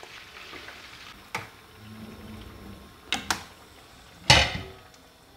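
Kitchen handling sounds over a faint frying hiss from pork liver in butter: a few sharp clicks of a metal fork against a bowl and pan, then one louder knock about four seconds in.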